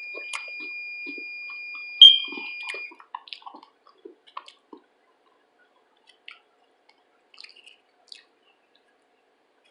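Small eating sounds with chopsticks: soft clicks, a sharp clink about two seconds in, and bits of chewing. A steady high-pitched tone runs alongside for the first three seconds and then stops.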